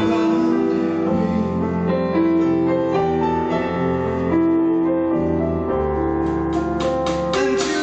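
Slow piano ballad played as an instrumental passage, with sustained piano or keyboard chords over a held bass line. A run of sharp percussive strikes comes in near the end.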